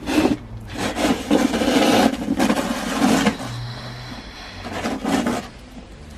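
Snow shovel scraping over packed snow and pavement in several pushes, each lasting up to about a second, with a short pause in the middle.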